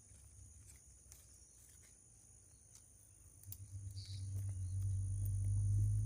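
Steady high-pitched insect buzzing outdoors, with a low rumble that rises about three and a half seconds in and becomes the loudest sound.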